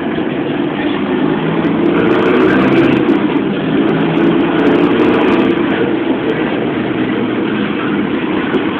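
City bus engine running under load with road noise, heard from inside the passenger cabin, with light rattling from about two to five seconds in.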